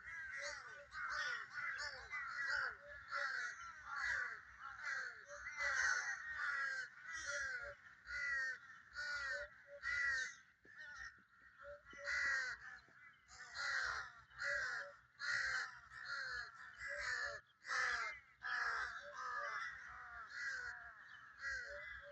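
A flock of crows cawing, many birds calling over one another in a steady chorus of harsh caws, about two a second, with a couple of brief lulls.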